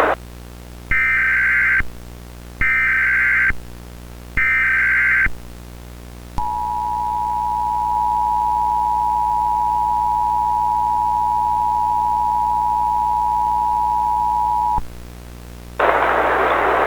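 Emergency Alert System audio: three short buzzy digital data bursts, each under a second, then the steady two-tone EAS attention signal held for about eight seconds. A burst of hissy static comes in near the end.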